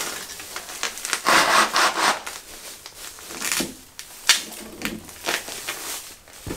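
Bodies, clothes and shoes scraping and rubbing against a wooden frame as people squeeze through a narrow opening, in irregular bursts with a few sharp knocks.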